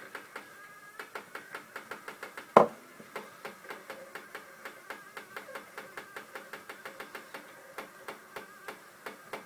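Rapid, irregular ticking and clicking from a homemade meths tripod stove and its pot of water as they heat, several clicks a second, with one much louder click about two and a half seconds in. A faint wavering tone runs underneath. The noise comes from the water heating inside the pot, the annealed aluminium legs, or the steel tray expanding.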